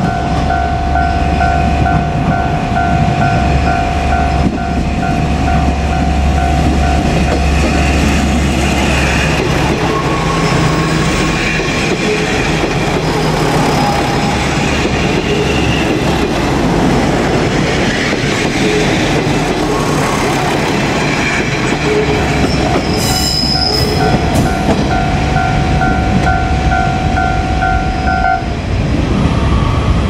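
Japanese level-crossing alarm ringing in a fast, evenly repeating tone while a KiHa 47 diesel railcar rumbles up and passes close by, its wheels clattering over the rail joints. The alarm is buried under the passing train through the middle, with a brief sharp high screech about three quarters of the way in, then rings out clearly again and stops a little before the end.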